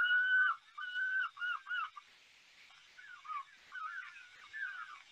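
A whistled tune: a long held note, then a run of short notes that bend up and down, a pause, and more notes, fainter.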